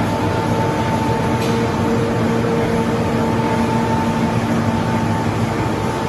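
Stack-type flexo printing machine running, printing aluminium foil: a loud, steady mechanical rumble with a constant whine.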